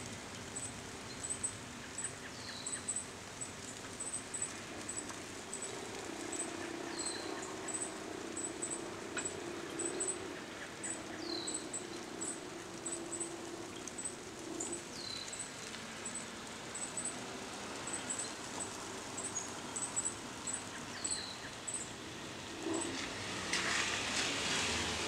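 Steady hiss of a rain shower with a breeze in the trees. Over it a bird gives a short, high, falling call about every four seconds, among many quick high chirps, and a louder rush of noise builds near the end.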